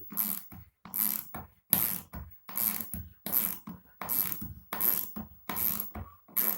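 Wrench ratcheting a long 8 × 120 mm hex-head plumbing screw down through a loose floorboard toward the concrete slab beneath, in repeated strokes of clicking about every three-quarters of a second.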